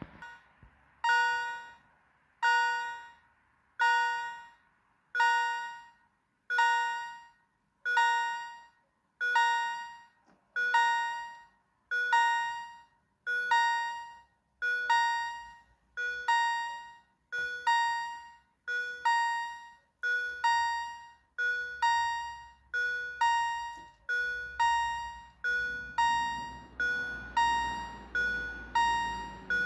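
Railway level crossing warning bell ringing, a single bright ding about every 1.2 seconds that fades quickly, while the crossing closes and the barriers come down. Near the end a low hum rises under the dings.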